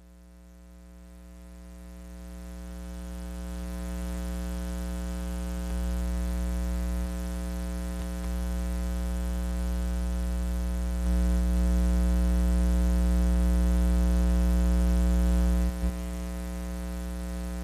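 Steady electrical mains hum in the audio feed: a low buzz with many overtones at an unchanging pitch. It swells up over the first few seconds, holds steady, steps a little louder about eleven seconds in, and drops back shortly before the end.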